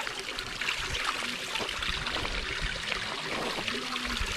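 Running water of a stream, a steady rushing hiss.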